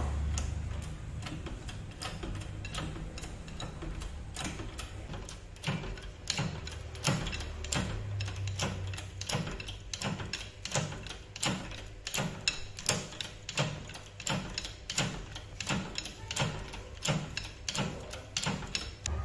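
Hand-pumped hydraulic shop press pressing a scooter's steering stem into the lower fork bracket: a steady run of clicks, about two a second, from the pump strokes. A low hum comes and goes underneath.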